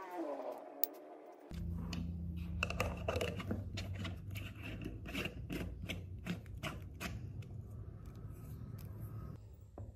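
Quick irregular clicks and scrapes of a plastic lid being fitted and turned on a small glass seasoning jar, and the jar handled on a wooden tabletop, over a low steady hum. Background music plays during the first second and a half.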